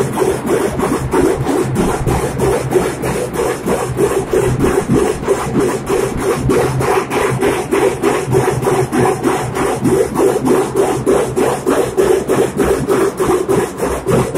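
Dhol pathak drumming: large dhol barrel drums beaten with sticks in a fast, even, driving rhythm that holds steady throughout.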